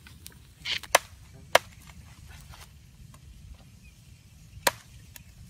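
A large knife chopping through snakes laid on a leaf on the ground. There are three sharp chops: two about a second in, roughly half a second apart, and one near the end.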